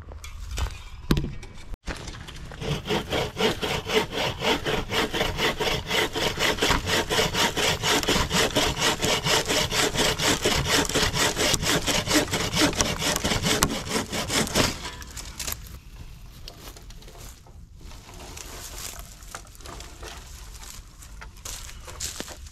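Wooden bow saw, its frame tensioned by a twisted cord, cutting through a log with quick, even back-and-forth strokes. The sawing stops about fifteen seconds in, leaving only softer, uneven handling noise.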